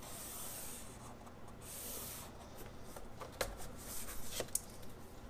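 Felt-tip marker drawn along a plastic drafting triangle on vellum: two short scratchy strokes in the first two seconds. Then light clicks and taps as the triangle is shifted on the drafting board.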